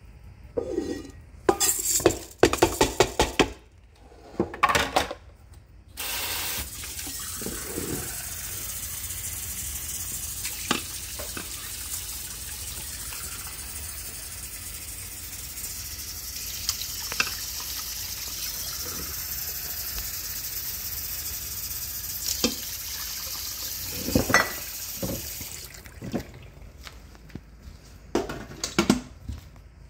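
Kitchen faucet running steadily for about twenty seconds, filling a stainless measuring cup with water for rice. Before it come a few seconds of rattling and knocks as a plastic colander of rinsed rice is handled at the sink, and near the end a few more knocks and clatter.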